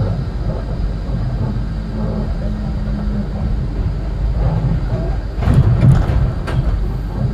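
Inside a Melbourne E-class tram running at speed: a steady rumble of wheels on rail with a low, steady hum. From about five seconds in, a run of sharp knocks and a louder rumble come in.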